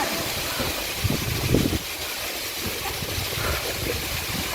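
Waterfall roaring: a steady rush of falling water, with a louder low rumble on the microphone from about a second in.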